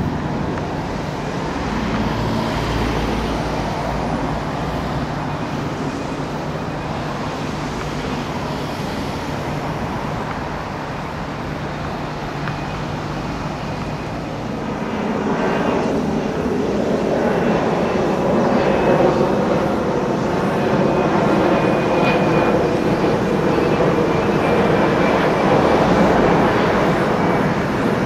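A jet airliner's engines rumbling as it flies over. The sound is steady at first and grows louder about halfway through, with a faint high whine joining it.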